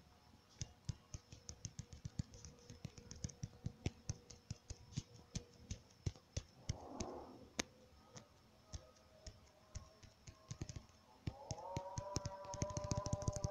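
Fingertips tapping a smartphone touchscreen: quick, irregular clicks, several a second. Near the end a held musical tone comes in under the taps.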